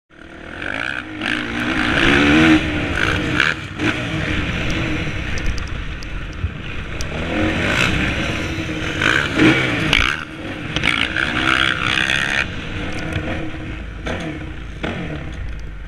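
Motocross bike engine heard from an onboard camera, revving up and dropping off again and again as the bike rides the track, its pitch rising and falling with each surge, over wind and track noise. It fades in about half a second in.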